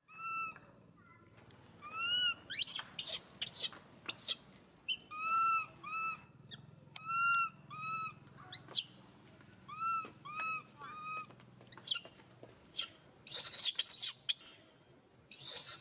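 A series of short, arched animal calls, each note rising and falling in pitch, repeated in small groups, with sharp clicks and crackles between them and a burst of noisy rustling near the end.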